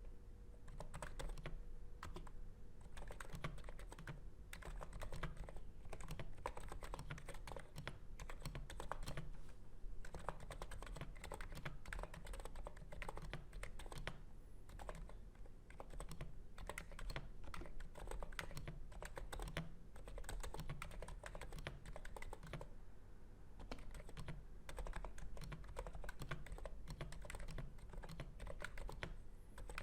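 Continuous fast typing on a NIZ Plum 87 keyboard with 35g electro-capacitive (Topre-style) switches on an integrated plate: a dense, irregular stream of soft keystroke clicks.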